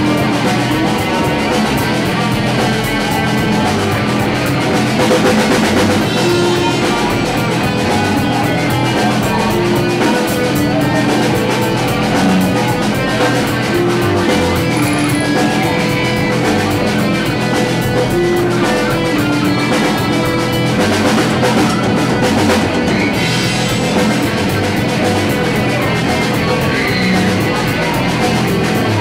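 Live band playing loud rock music, drum kit and guitar, with held steady notes layered over dense, continuous sound.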